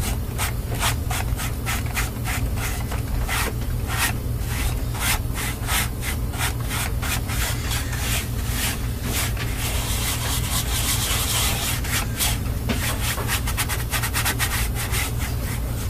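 Quick, repeated rubbing or scraping strokes, about three a second, over a steady low hum.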